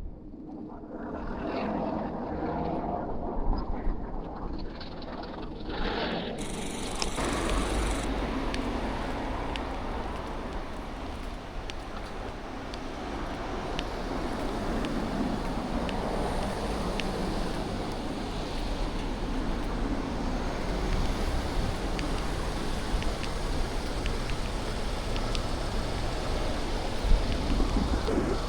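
Urban street ambience: a steady wash of road traffic noise with a low rumble.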